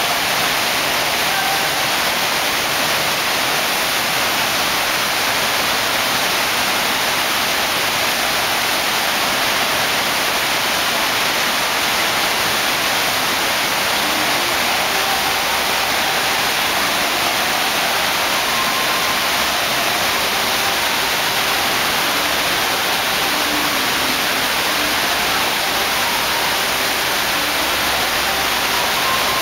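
Steady, even rush of water from a FlowRider sheet-wave machine, its thin sheet of water jetting up over the riding surface.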